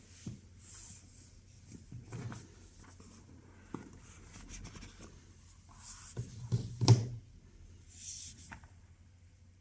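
Handling noise in a small room: rubbing and scraping with scattered small clicks, and one louder knock about seven seconds in.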